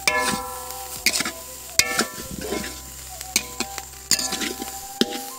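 Metal spatula stirring and scraping grated coconut around a metal wok, with sharp scrapes and clinks roughly once a second, some of them leaving a short metallic ring.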